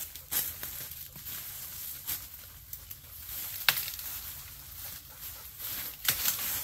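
Brush rustling and crackling as limbs and vines are pulled and trimmed by hand, with scattered clicks and one sharp click about midway.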